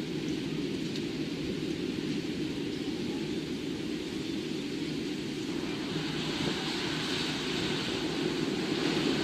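Storm ambience: a steady low rumble of wind, slowly growing louder, with a rain-like hiss building from about six seconds in.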